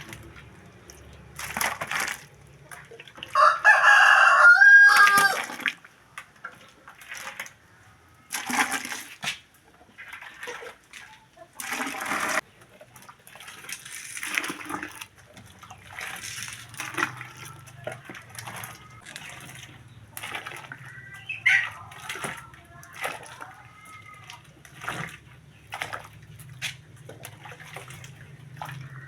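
A rooster crows once, loudly, about three seconds in, the call ending on a falling note. Scattered knocks and clatter come and go, and a chicken calls more faintly later on.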